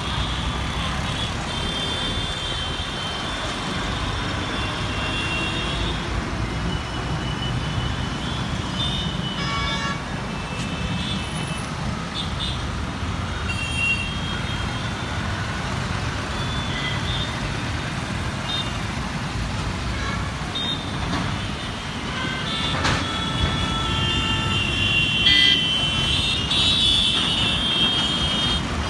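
Dense urban road traffic: cars, motorcycles, auto-rickshaws and buses run with a steady rumble, and vehicle horns honk again and again. The horns and the overall level pick up in the last third.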